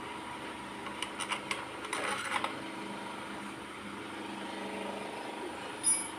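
Several light metallic clicks and taps, as of small metal parts or tools being handled, over a steady electrical hum; one sharper clink near the end.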